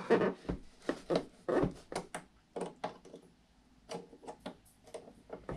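Irregular small metal clicks and taps of locking pliers (vise grips) being fitted onto the pin at the top of an RC boat's rudder assembly, with a short lull about three seconds in.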